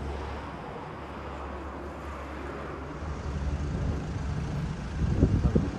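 Canadair CL-215 water bomber's engines droning as it flies low overhead, growing louder partway through. Near the end come several low, loud thumps.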